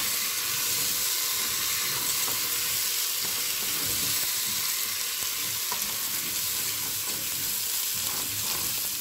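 Dry rice and brown lentils being stirred with a wooden spoon in a steel pot of hot oil: a steady sizzle with the grains rustling and scraping against the pot as they toast.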